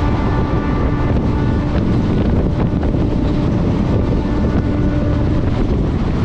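Passenger train running at speed, heard from aboard as a steady loud rush of wind and rail noise buffeting the microphone, with faint steady tones running through it.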